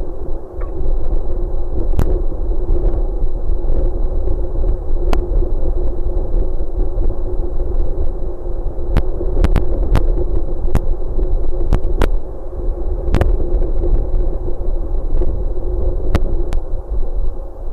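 Wind noise on an exposed nest-camera microphone high on a tower: a steady, loud low rumble with a hum in it. Sharp clicks come at irregular intervals, most of them in the second half.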